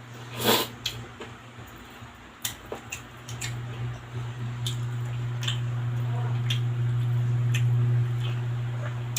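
Close-miked eating sounds from a person eating sinigang soup with lechon pork: scattered wet clicks and smacks of chewing, over a steady low hum that grows louder after about four seconds.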